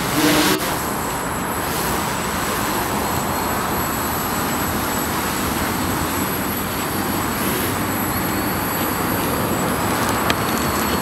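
Multirotor quadcopter's propellers and motors running in a steady whirr as it flies low, with a short louder rush right at the start.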